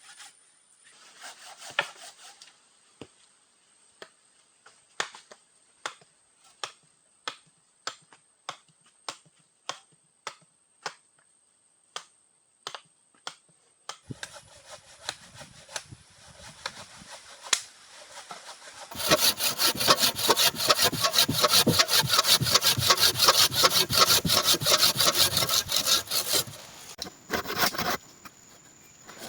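Hand saw cutting wood: slow, regular strokes at first, then after a short lull a loud, fast run of sawing that stops a few seconds before the end.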